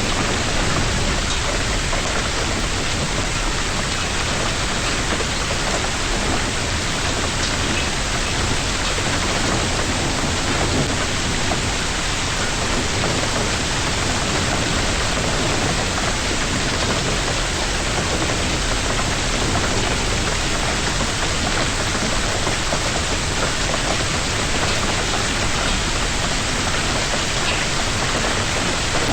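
Hailstorm downpour: a steady, dense hiss of precipitation pelting surfaces close to the microphone, with scattered faint ticks.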